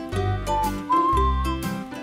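Upbeat background music: a whistled melody over a bass line and a steady beat.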